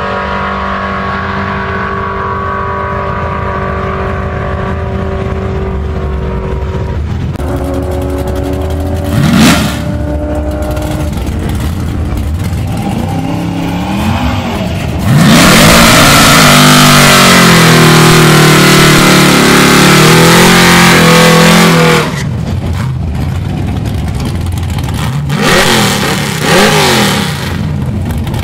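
Fox-body Ford Mustang convertible's engine idling, with a few revs, then a burnout about halfway through: about seven seconds of high revs with the rear tyres spinning, the loudest part. It ends with a few short revs.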